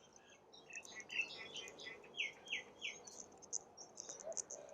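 Small birds chirping: a run of quick chirps about a second in, then three clear downward-sliding notes, followed by high thin twitters near the end.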